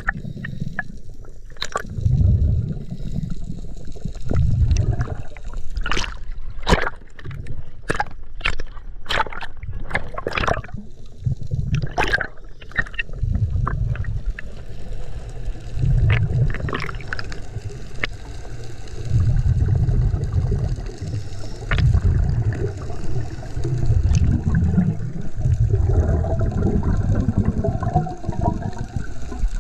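Underwater water noise from a scuba diver going down, heard through the camera's housing: low bubbling rumbles come every couple of seconds, with a run of sharp clicks in the first half.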